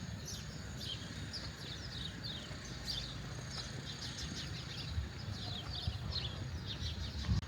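Small birds chirping over and over, short quick calls, above a steady low rumble of outdoor background noise.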